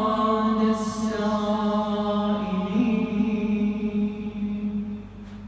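A man's voice chanting an Arabic Islamic supplication (du'a) unaccompanied, drawing out one long sung note that wavers a little in the middle and fades away near the end.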